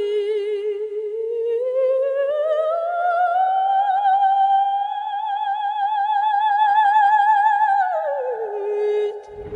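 Operatic soprano voice singing one long note with a wide vibrato, over music. The note glides up about a second and a half in, is held, and slides back down near the end.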